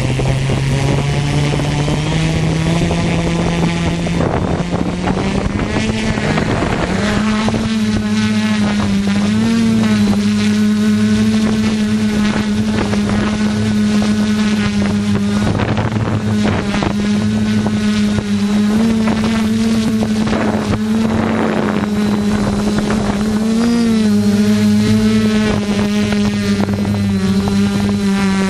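ZionEX460 multirotor drone's motors and propellers humming, rising in pitch over the first several seconds and then holding a steady hum with small wavers in pitch as they correct against strong wind. Wind buffets the microphone throughout.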